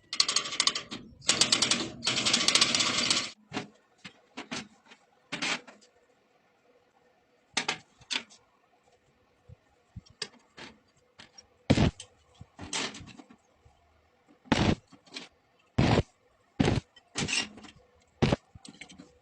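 Metalworking sounds: about three seconds of dense, crackling welding noise, then scattered sharp metal knocks and taps, some in quick pairs.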